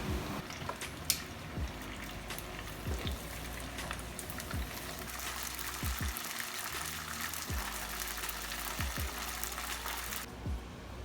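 Battered chicken pieces deep-frying in hot vegetable oil: a steady crackling sizzle that cuts off abruptly near the end. Under it, background music with a low, regular beat.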